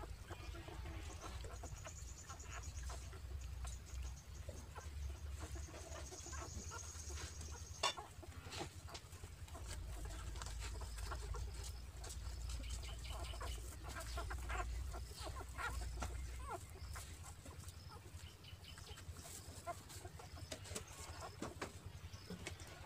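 Faint, scattered animal calls and small clicks over a steady low rumble.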